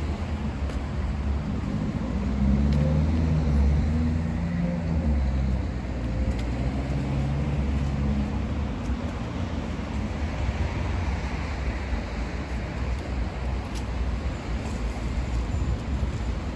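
Street traffic: a steady rumble of city road noise, with a motor vehicle passing close by a few seconds in.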